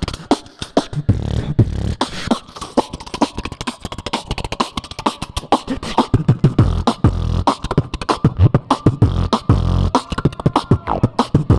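Beatboxer performing a solo round into a cupped handheld microphone, amplified: rapid clicking snares and hi-hats over repeated deep bass hums, with a held higher tone running on top from about two seconds in.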